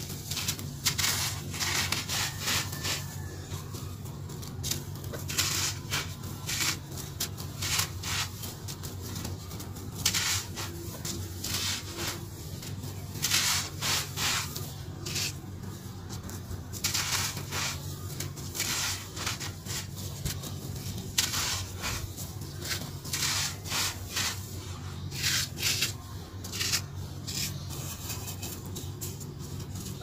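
Hands crumbling and crushing dry sand-cement chunks: irregular gritty crunches, with grains rubbing and trickling onto a bed of loose powder.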